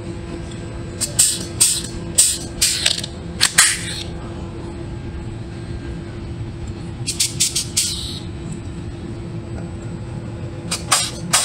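Pneumatic rivet gun hissing in short sharp bursts of exhaust air as its trigger is pulled to set rivets. There are several bursts about a second in, a quick group of four or five in the middle, and more near the end, over a steady low hum.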